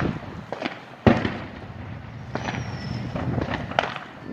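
Fireworks going off: a series of sharp bangs and pops, the loudest about a second in, with more scattered pops in the second half.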